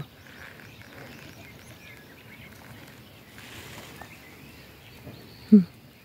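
Quiet rural field ambience with a few faint bird chirps. Near the end comes one brief, low, voiced sound.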